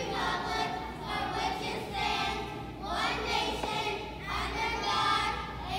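A group of young children singing together in unison, holding notes of about a second each.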